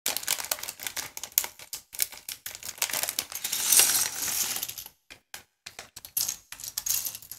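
Loose Lego-compatible plastic building bricks clattering as they are tipped out of a clear plastic bag onto a table and spread by hand: a dense run of small clicks and rattles mixed with the bag crinkling, loudest a little under four seconds in, then after a brief pause about five seconds in, more scattered clicks as the pieces are pushed about.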